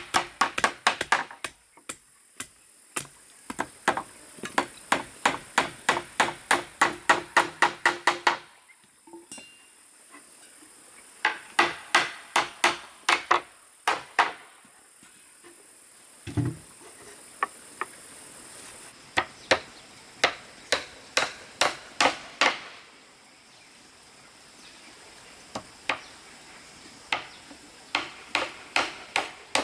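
Hammer driving nails into wood in quick runs of sharp strikes, several bursts separated by short pauses.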